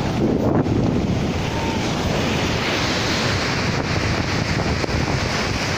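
Ocean surf washing in and out over the sand at the water's edge, a steady rushing of breaking waves and foam, with wind buffeting the microphone.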